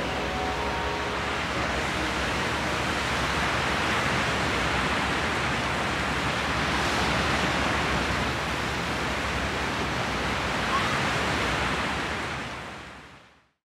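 Ocean surf washing up on a sandy beach: a steady rush of breaking waves that fades out near the end.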